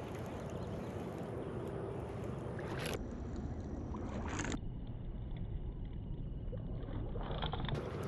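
Steady low rumble and hiss of wind buffeting the microphone, with no distinct sounds standing out.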